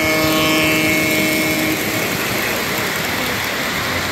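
O-gauge three-rail model train passing close by: the Santa Fe F-unit diesel locomotive gives a steady humming tone for the first couple of seconds, then the freight cars' metal wheels roll along the track with an even rushing noise.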